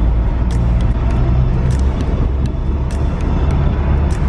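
Car cabin on a rough sandy dirt track: a steady low rumble of engine and tyres, with scattered sharp knocks and rattles as the car jolts over the bumps.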